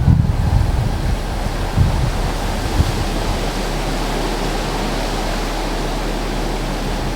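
Steady rushing hiss, with a few low thumps in the first three seconds.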